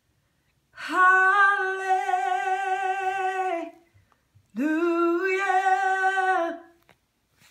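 A woman singing unaccompanied, without words: two long held notes with vibrato, the second sliding up into its pitch.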